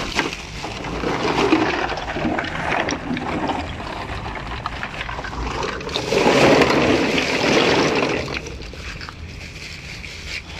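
Aluminium cans clattering and tumbling as they are poured out of a plastic bag into a can-recycling machine, with the bag rustling. The rush is loudest about six seconds in and eases off near the end.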